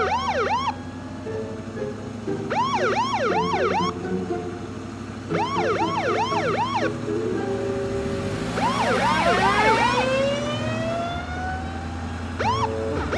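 Police siren sounding in short repeated bursts of quick rising-and-falling yelps, about five bursts, with longer rising wails in the second half. A low steady hum runs underneath.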